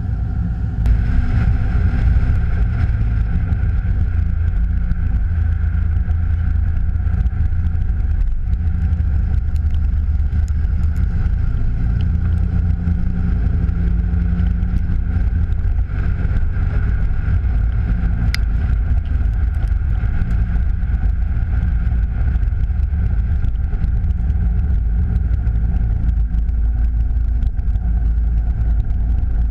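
Chevrolet Camaro SS's LS1 V8, breathing through Pacesetter headers and an SLP Loudmouth exhaust, picking up about a second in and then cruising at light throttle, never pushed hard. It is heard from outside the car, low beside the wheel.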